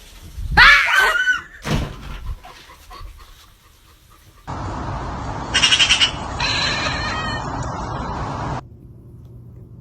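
A cat meows loudly about half a second in, with a shorter call just after. A few seconds later comes a stretch of steady noise, pulsing briefly at its loudest, that cuts off suddenly.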